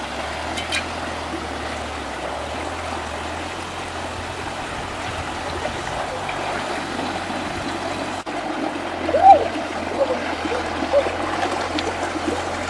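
Shallow rocky stream trickling and splashing steadily over stones. A few brief high chirps come near the end.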